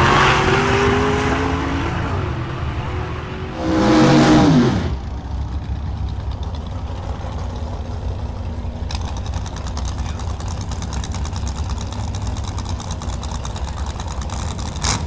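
Drag race cars running hard down the strip, their engine note fading away, then a second loud pass with falling pitch about four seconds in. After that, the steady low rumble of altered-style drag cars idling in the staging lanes, turning choppy and pulsing from about nine seconds on.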